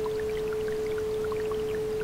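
A steady pure tone held at one pitch, about 432 Hz, over a babbling brook recording of water gurgling, with many small bubbling plinks scattered throughout.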